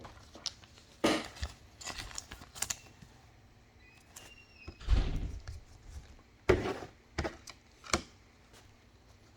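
Trading cards and packs being handled on a table: scattered light taps, knocks and rustles, with a heavier dull thump about five seconds in.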